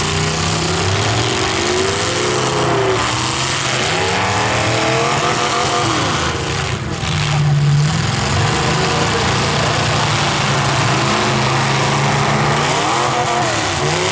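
Engines of several full-size demolition derby cars revving hard, their pitch repeatedly rising and falling as the cars accelerate and back up, over a constant loud din.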